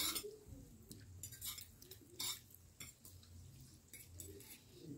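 Faint eating sounds: forks clinking and scraping on ceramic plates and noodles being slurped, a few short sharp sounds spaced out over a low background hum, the sharpest click right at the start.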